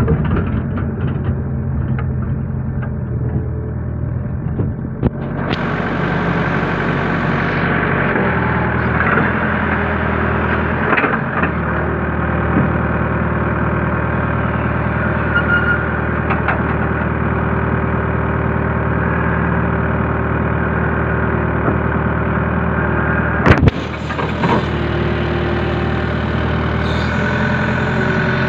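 Excavator's diesel engine running steadily, heard from the cab as the hydraulic boom works the bucket through canal mud. It gets louder about five seconds in, and there is one sharp knock near the end.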